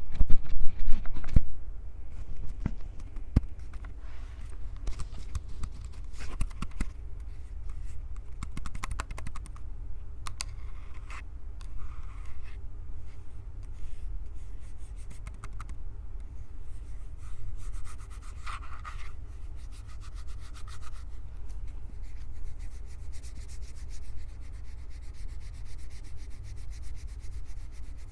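Hands rubbing and gripping a Tascam handheld recorder's microphones, a continuous rubbing sound with heavy low handling rumble and scattered small clicks. Louder knocks and clicks come in the first second or so.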